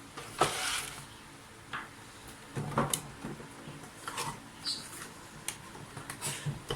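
Vacuum cleaner's cord-rewind reel assembly being handled and seated back into its plastic housing: a short scrape near the start, then a string of separate clicks and knocks of plastic parts.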